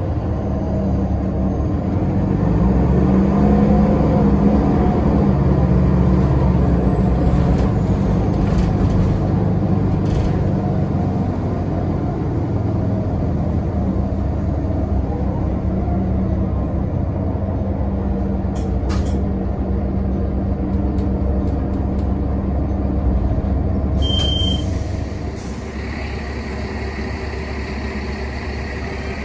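Diesel engine and drivetrain of a Nova Bus LFS articulated city bus heard from inside the passenger cabin while driving, swelling and rising in pitch a few seconds in, then running steadily. Near the end there is a short beep, and then the bus idles, heard from beside it outdoors.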